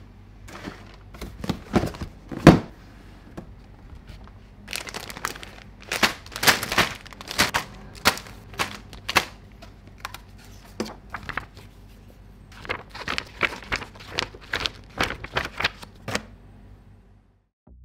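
Clear plastic bags of model-kit runners crinkling as they are handled and lifted from a cardboard box, in clusters of sharp crackles, with a couple of knocks in the first few seconds.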